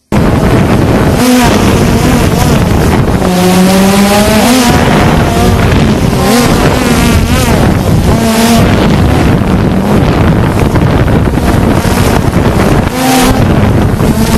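Small drone's electric motors whining and shifting in pitch as it flies low, under heavy wind noise on its onboard microphone.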